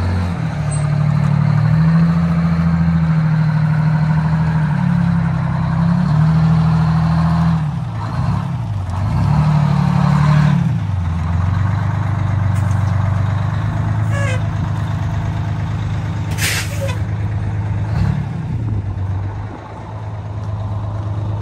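1983 Thibault ladder fire truck's engine running as the truck is manoeuvred, its pitch rising and falling repeatedly with the throttle. A short hiss of air comes about three-quarters of the way through.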